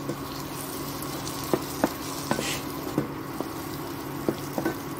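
Onion and tomato masala frying in oil in a non-stick kadhai with a steady sizzle, as a spatula stirs it and taps sharply against the pan several times.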